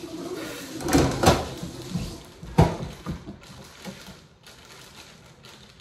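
Plastic bag of flour crinkling as it is squeezed and shaken over a metal mixing bowl. There are sharp crackles about a second in and again about two and a half seconds in, then softer rustling.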